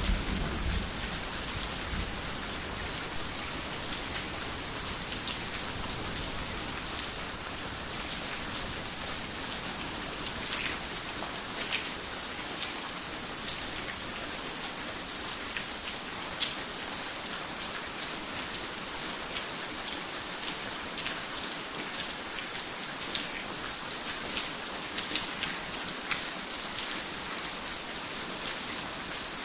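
Heavy rain falling steadily on a garden house, with many sharp individual drops striking close by. The low rumble of thunder dies away in the first couple of seconds.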